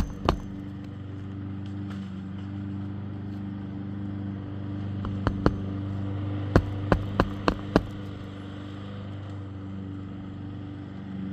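Sharp knocks of nails being driven while shingles are repaired on a roof: one just after the start, a pair about halfway, then a quick run of five about three a second. A steady low machine hum runs underneath.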